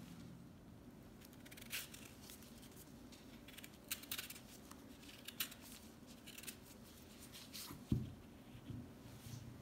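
Vegetable peeler scraping the skin off a raw beetroot in short, faint strokes, about one a second. A soft thump on the wooden cutting board near the end.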